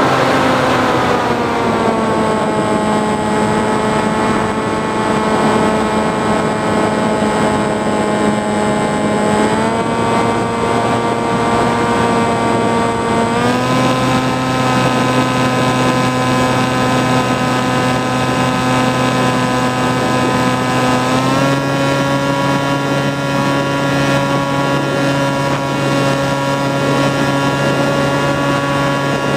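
FPV flying wing's motor and propeller running steadily in flight, a pitched drone. Its pitch drops over the first couple of seconds, then steps up three times: about ten, fourteen and twenty-two seconds in.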